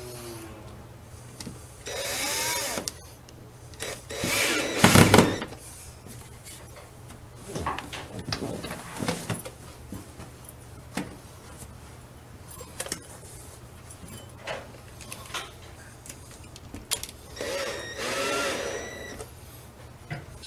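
Cordless drill/driver whirring briefly twice, about two seconds in and again near the end, each time speeding up and winding down. Between the runs come knocks and clicks of tools being handled, the loudest a sharp knock about five seconds in.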